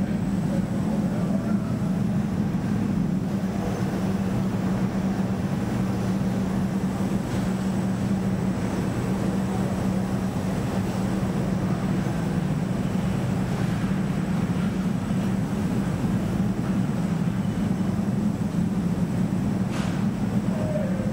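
EDRO DynaWash three-pocket end loader washer-extractor running: a steady mechanical rumble under a constant low hum, even in level throughout.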